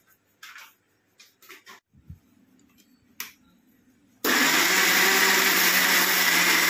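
A few light knocks of handling, then about four seconds in a Philips mixer grinder switches on abruptly and runs steadily at speed, its steel jar blending mango pulp and sugar into puree.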